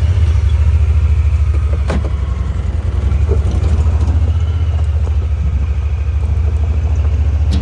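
A vehicle engine, just started, running with a loud, steady low rumble.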